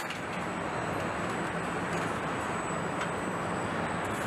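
Steady machinery noise and low hum of a truck assembly plant floor, with a thin high-pitched whine and a light click about three seconds in.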